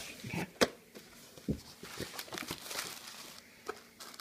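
Hands working a stiff cardboard box open: a sharp knock about half a second in and a dull thud about a second later as the lid comes free, then light handling noise of cardboard and rustling tissue paper.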